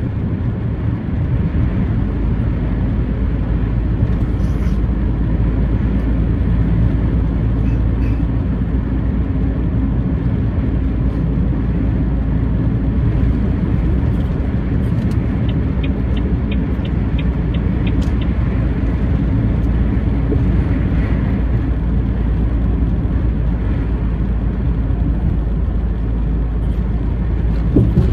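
Truck driving at steady cruising speed: continuous engine drone and road noise with a strong, even low hum.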